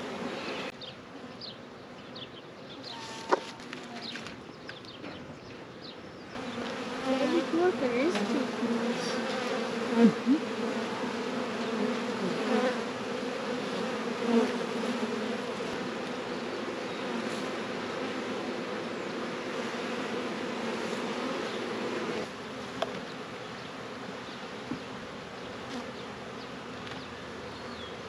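A swarm of honeybees clustered on and around a catch box, buzzing in a steady drone of many wings. The drone grows louder about six seconds in and drops back about twenty-two seconds in.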